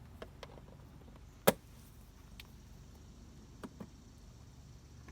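Sharp clicks of a gas lift strut's end fittings being worked onto their mounting studs. There is one loud click about a second and a half in, then two lighter clicks close together near the middle.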